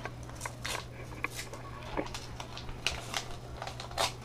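Paper rustling and crinkling as a greeting card and its envelope are handled and opened: a string of short, irregular crackles over a faint steady hum.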